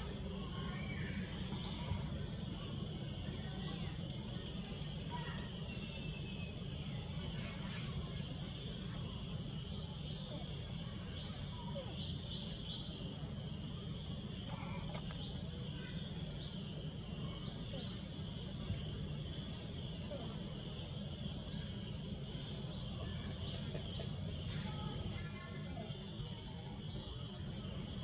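Steady chorus of insects, a continuous high pulsing buzz, over a low steady rumble of background noise.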